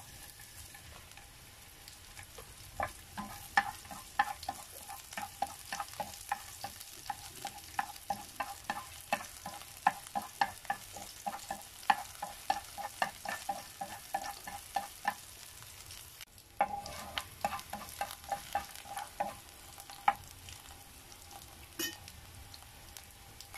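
Sliced leeks sizzling gently in oil in a nonstick frying pan while chopsticks stir them, tapping and scraping the pan in quick light clicks, several a second. The tapping pauses briefly about two-thirds of the way through, then resumes.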